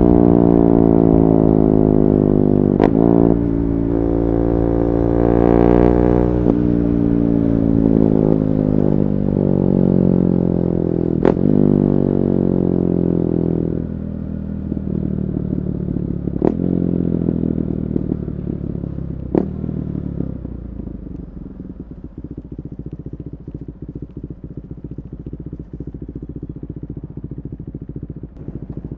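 KTM 390 Duke's single-cylinder engine breathing through a decat pipe and Akrapovic slip-on exhaust, its note falling in stages as the revs drop, with about five sharp cracks along the way. About halfway through it drops to a lower, choppier idle.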